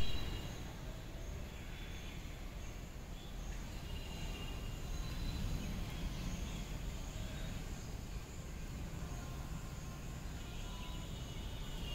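Steady low background rumble with faint, brief high tones now and then.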